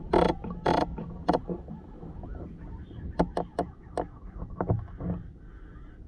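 Rifle scope turret being dialled: a run of sharp clicks, several a second, mixed with rustling handling noise on the rifle.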